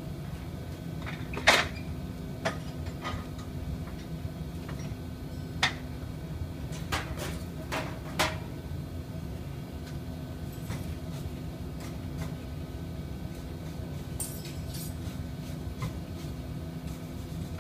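Steady low machinery hum with scattered sharp clinks and knocks of hand tools on the parts of a mixer being cleaned. The loudest knock comes about a second and a half in, and a quick run of taps comes near the end.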